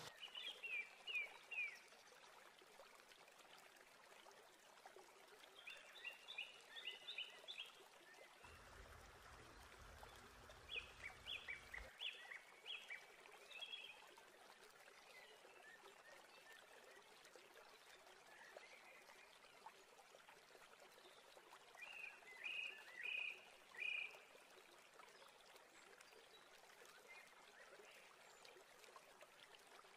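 Faint chirping calls in four short bouts of rapid high notes, over a steady low hiss, with a low hum for a few seconds about a third of the way in.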